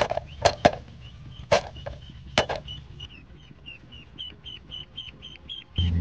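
Ducklings peeping: a steady run of short high peeps, about three a second, with several sharp knocks in the first half.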